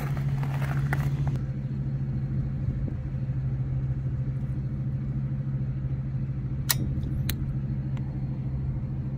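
Steady low mechanical hum with a rumble, like an engine or machine running nearby. Near the start there is a brief noisy clatter, and about seven seconds in there are two sharp ticks about half a second apart.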